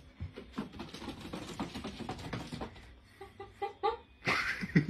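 A kitten's claws ticking and scrabbling on a hard floor and wall, a quick irregular run of clicks and scratches. About three seconds in come a few short chirps, and near the end a loud breathy burst as laughter starts.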